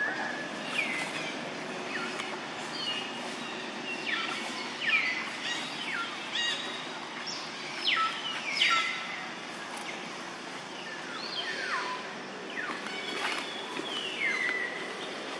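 Wild birds calling: many short, sharply falling whistled chirps, scattered throughout, over a steady outdoor background hiss.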